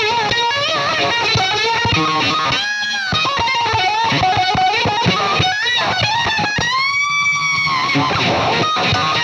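Distorted electric guitar lead played through a Roger Mayer Voodoo-Vibe, a Uni-Vibe-style modulation pedal. A fast line is broken by bent notes, and two long held notes, one about three seconds in and one about seven seconds in, waver slowly in pitch.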